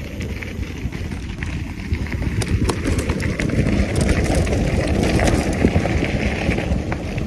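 Mountain bike riding fast over a rough dirt trail: a dense rumble from the tyres on the ground with many small knocks and rattles over bumps, growing louder about two seconds in.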